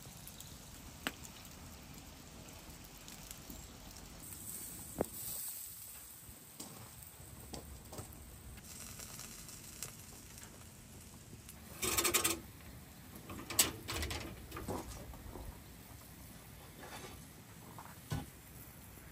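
Charcoal fire crackling with scattered sharp pops under a roasting whole sheep. About two thirds of the way through come a few louder rustling and knocking bursts.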